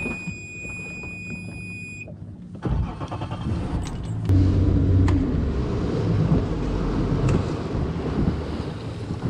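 A steady electronic beep for about two seconds, then the boat's outboard motor throttles up. From about four seconds in, the engine runs under way with a loud low rumble mixed with the rush of water along the hull.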